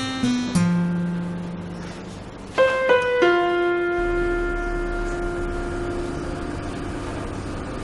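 Background drama score on keyboard: slow notes, a few at the start, a cluster a little before the middle, then a long held note.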